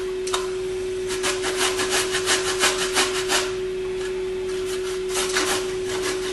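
Fresh ginger being grated on a stainless steel box grater, in quick grating strokes about four a second, with a pause after the first run and a few more strokes later. A steady hum runs underneath.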